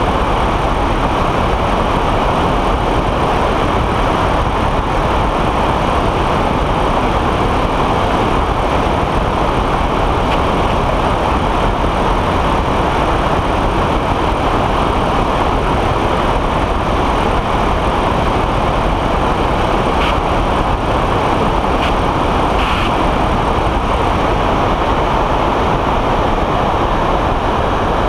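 Weight-shift microlight trike in cruise flight: a steady, loud rush of wind over an outside-mounted camera microphone, mixed with the drone of the engine and pusher propeller.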